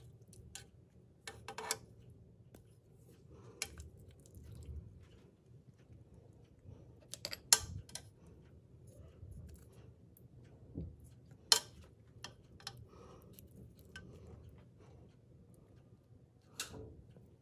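Kitchen tongs clicking and knocking against a stainless-steel pot and a ceramic dish as pieces of cooked chicken are lifted out and laid down. The clacks are scattered and irregular, with two louder ones near the middle.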